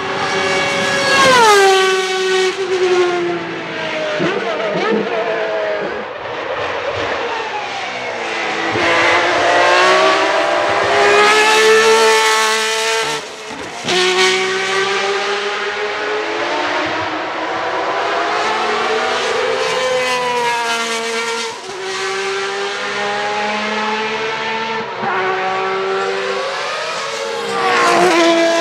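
Ferrari 333 SP's 4.0-litre V12 racing engine at full song on track. The pitch climbs steadily as it accelerates and drops sharply at each upshift, over and over, as the car passes.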